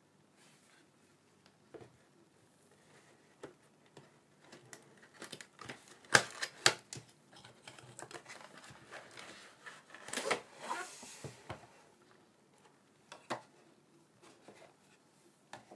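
A small cardboard box and its contents being handled and opened: scattered clicks, taps and rustles, with a cluster of sharp clicks about six seconds in, another around ten seconds and a single click near thirteen seconds.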